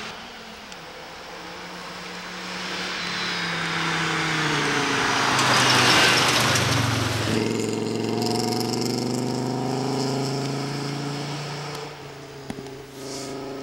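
Rally car engine running hard on a gravel stage. The car approaches and passes close by about six seconds in, with a rush of tyre and gravel noise. It then pulls away with its engine note climbing as it accelerates.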